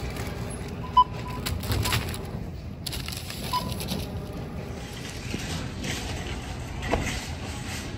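Supermarket checkout scanner beeping as items are rung up, a few short beeps with the loudest about a second in, among the rustle and clatter of groceries and bags being handled.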